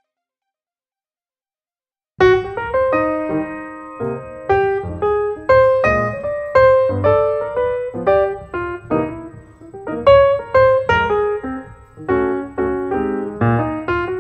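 Silence for about two seconds, then solo piano music begins, a melody of separate struck notes over a low bass line.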